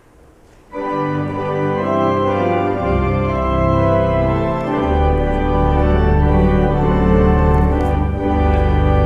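Organ playing a hymn introduction in held chords, starting about a second in, with low bass notes joining about three seconds in.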